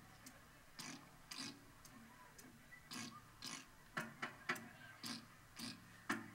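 Sharp wooden clicks, spaced unevenly and some in quick twos and threes, from the traditional Vietnamese instrument ensemble about to play.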